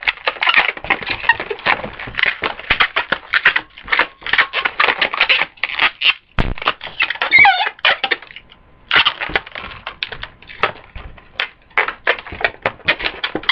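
Inflated 260 latex twisting balloons squeaking and rubbing against each other as twisted segments are handled and untwisted: a rapid, uneven run of squeaks and creaks, with a couple of sliding squeals about seven seconds in.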